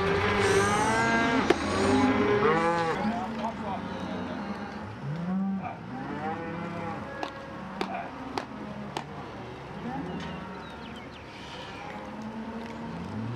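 A pen of cattle bawling, many calls overlapping, loudest in the first few seconds and thinning to scattered calls after. A few sharp knocks are heard among them.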